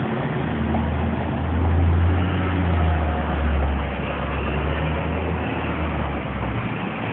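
A motor vehicle passing by on the street: a low engine rumble that builds to its loudest about two seconds in and fades away near the end, over steady traffic noise.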